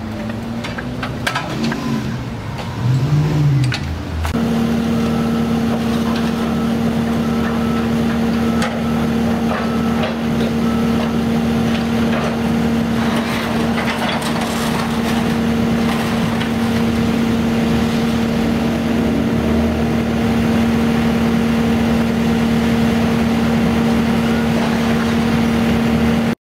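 Excavators working a demolition site: a diesel engine and its hydraulics run at a steady pitch, with debris clattering and scraping over them. Near the start, before the steady hum sets in, an engine's pitch swells up and down, and a faint beep repeats about once a second for a few seconds.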